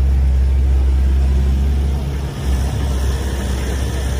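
An engine idling steadily, with a brief dip about two seconds in.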